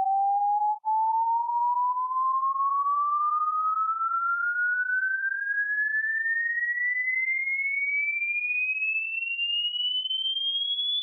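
Pure sine test tone of a hearing test, gliding slowly and steadily upward in pitch from a middle tone to a high, thin whistle. It drops out for a moment about a second in.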